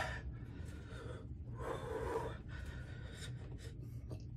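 A man breathing through his mouth in a series of soft breaths as he copes with the burn of extremely hot pepper jerky.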